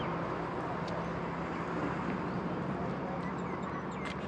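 Outdoor street ambience: a steady wash of traffic noise with a low steady hum and a few faint bird chirps.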